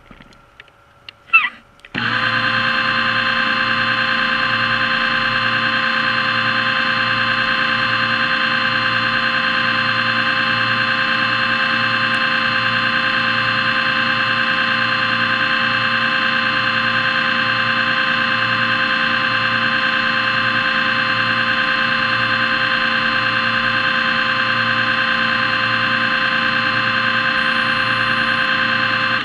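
Underwater scooter's electric motor and propeller running with a steady multi-pitched whine, switched on suddenly about two seconds in.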